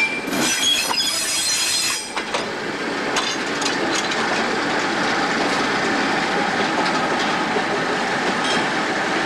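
Sealion ballast hopper wagons rolling slowly past on yard track. Their wheels squeal high for the first couple of seconds, then give way to a steady rolling noise with scattered clicks over the rail joints.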